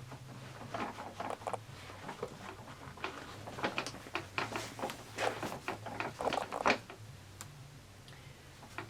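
Rustling and scraping handling noise in irregular strokes as a nylon webbing loop is worked through a hole in a soft saddle pad, over a faint steady low hum.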